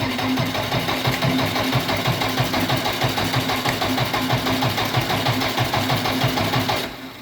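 JCB 444 four-cylinder diesel engine running with an uneven, misfiring beat, then shut off and dying away near the end. The misfire is put down to the injection timing being out.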